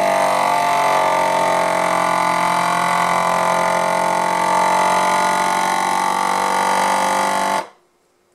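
FoodSaver vacuum sealer's pump motor running with a steady hum as it draws the air out of the bag, then cutting off suddenly near the end.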